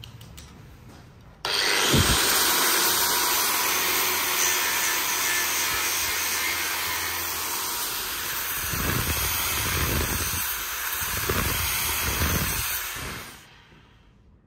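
Electric angle grinder with an abrasive disc grinding the steel blade of a knife forged from twisted wire rope. It starts abruptly about a second and a half in, runs steadily with a harsh grinding noise, has a few deeper surges in the last few seconds, and cuts off near the end.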